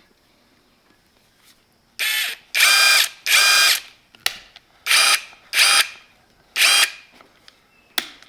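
DCK 20V cordless impact driver spinning with no load in short trigger pulls: about six bursts of an even-pitched motor whine, each under a second, starting about two seconds in, with a brief blip near the end.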